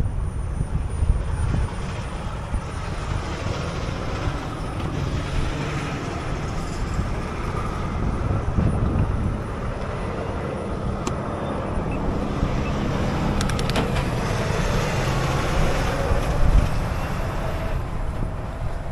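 Road traffic at an intersection, with cars running and driving past, under a low wind rumble on the microphone.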